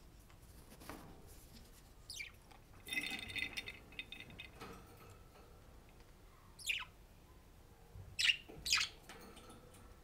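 Budgerigars chirping: a few short chirps that fall steeply in pitch, the loudest two close together near the end, and a brief bout of chattering about three seconds in.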